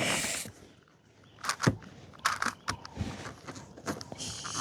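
6x6 Rubik's cube being turned by hand: irregular plastic clicks and clacks as its layers are rotated.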